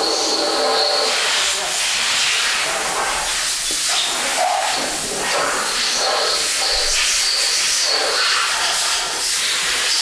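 Steady loud hiss with a faint high-pitched tone running above it.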